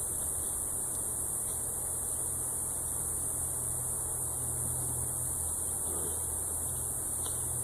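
Steady low hum of honeybees flying around an opened hive, over a constant high-pitched hiss.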